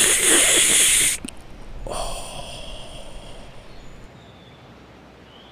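A long, loud hissing draw on a vape pen that stops about a second in, then a softer breathy exhale of vapour that fades away.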